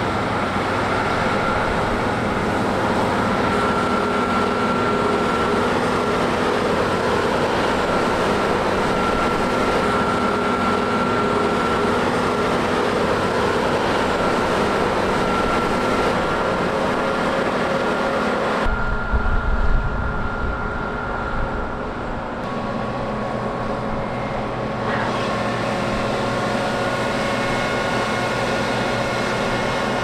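Claas Trion 720 combine harvester running while cutting barley: a steady mechanical drone from its Cummins engine and threshing gear, with a thin high whine over it. About two-thirds through the sound shifts, with a few seconds of low buffeting rumble, then settles back into a similar steady drone.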